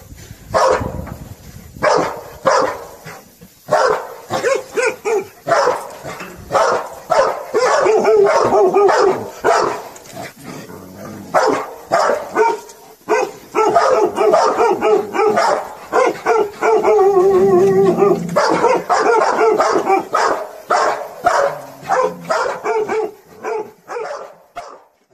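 Hunting dogs barking at wild boars in a pen during a boar-reaction test: many sharp barks, coming in quick volleys that run almost together in the middle.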